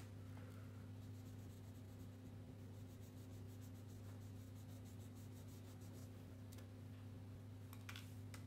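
Crayon rubbing on paper in faint strokes, over a steady low hum. Near the end a few sharper clicks as crayons knock together in their tray.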